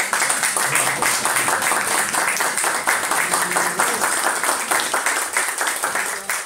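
Audience applauding: dense, steady clapping that starts just before and breaks up into a few scattered claps at the very end.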